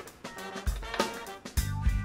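Background music with a drum-kit beat, bass drum hits about a second apart.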